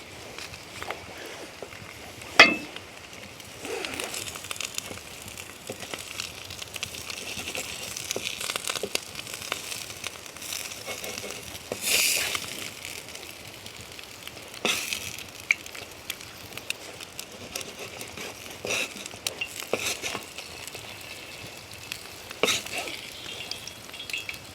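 Food frying in a cast-iron pan over an open fire, a steady sizzle broken by occasional clinks and knocks of a utensil against the pan. The sharpest knock comes about two seconds in.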